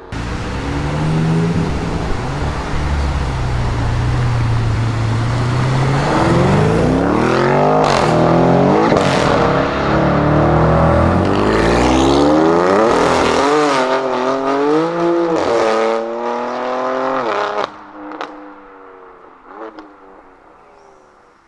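Tuned BMW M3 F80's twin-turbo straight-six, through a Milltek exhaust, launching and accelerating hard. A deep, rough rumble comes first, then the engine note repeatedly climbs and drops through hard revs and gear changes. About three-quarters of the way in it falls away to a few quieter, short blips.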